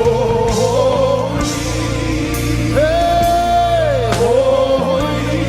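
Live gospel worship music: a voice singing long, gliding held notes over a steady instrumental backing.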